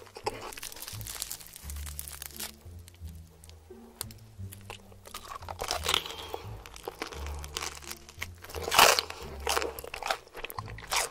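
Close-miked crunching bites and chewing of crispy fried chicken, in a run of crunches with the loudest about nine seconds in. Background music with a steady bass line plays underneath.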